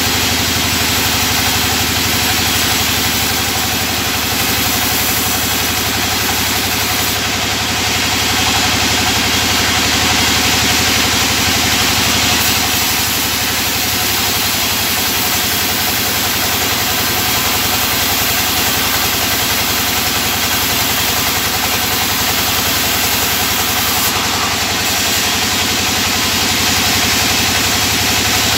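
Band sawmill running steadily and resawing a wooden board into thinner planks: a constant low machine hum under the hiss of the blade cutting through the wood, with small shifts in the hiss as the board is fed.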